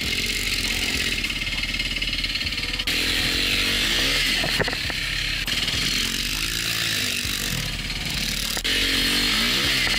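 Motocross bike engine revving hard as it is ridden round the track, its note rising and dropping again and again, with rushing wind noise over it.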